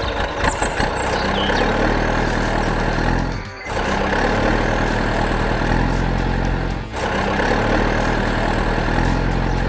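Heavy vehicle engine running steadily, dropping out briefly twice: about a third of the way in and again about two-thirds in.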